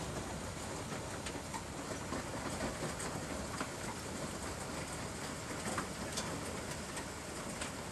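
Hailstorm: a steady hiss of falling hail and rain, with scattered sharp ticks of individual hailstones striking roof tiles and other hard surfaces.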